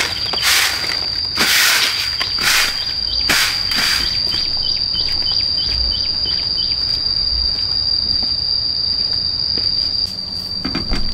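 Insects droning with one steady high-pitched tone throughout, with a run of quick ticks at about four a second between about four and seven seconds in. Over the first four seconds, several loud swishes about a second apart.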